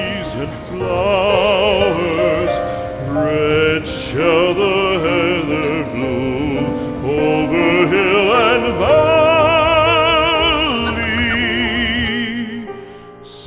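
Music with an operatic-style voice singing long held notes with heavy vibrato over an accompaniment; it dies down briefly near the end.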